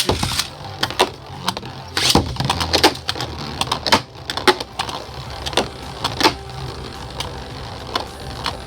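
Two Beyblades launched into a plastic stadium: a loud ripping launch at the start, then the spinning tops whirring and clashing with many sharp clacks. The hits come thick in the first half and grow sparse toward the end.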